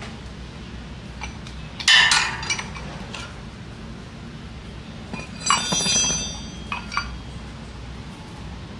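Steel hand tools, a socket wrench and extension bar, clinking against metal: a loud ringing clink about two seconds in, another ringing clink a few seconds later, then two lighter clicks.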